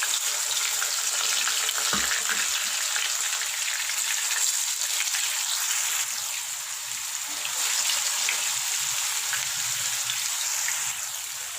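Marinated chicken pieces sizzling steadily in hot sunflower oil in a frying pan, with scattered crackles and a single low knock about two seconds in.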